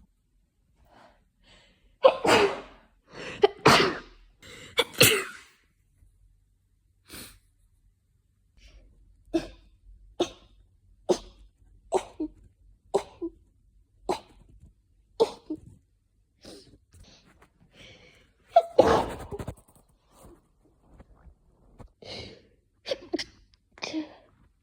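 A person sneezing over and over in a hay fever sneezing fit brought on by pollen. Three loud sneezes come a few seconds in, then a rapid run of shorter sneezes about one a second, one more big sneeze, and a few more near the end.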